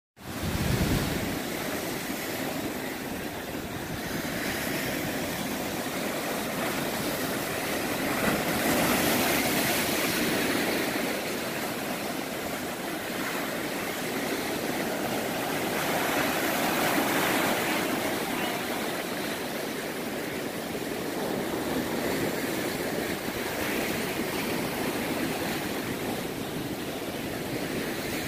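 Ocean surf breaking and washing over the shallows: a steady rushing wash that swells louder and eases every several seconds.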